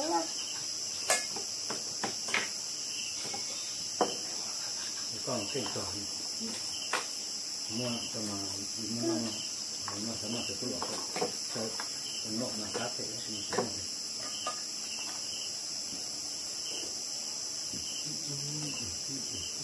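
Night insects, crickets, chirping in a steady high-pitched chorus, with a fainter chirp repeating at an even pace. A few sharp clinks of spoons on bowls come through over it.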